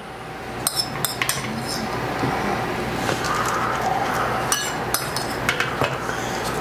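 A metal spoon clinking and tapping against a foil-lined sheet pan as diced onion is spooned onto the potatoes: several sharp clinks, a few close together about a second in and more near the end, over a steady hiss that grows louder in the first two seconds.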